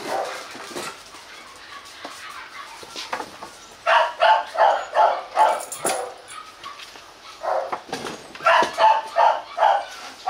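A dog barking in two quick runs of about half a dozen barks each, the first about four seconds in and the second near the end.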